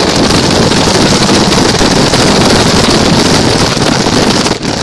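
Loud, steady rush of wind and driving noise on the microphone of a camera mounted on a small toy car as it drives; it dips briefly near the end.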